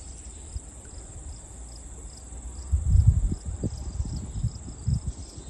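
Steady high-pitched trilling of insects such as crickets, with wind buffeting the microphone in low rumbling gusts, loudest about three seconds in.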